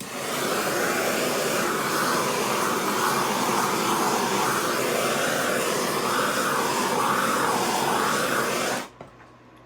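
Handheld torch flame blowing steadily over freshly poured epoxy resin to pop surface bubbles, then shut off abruptly about nine seconds in.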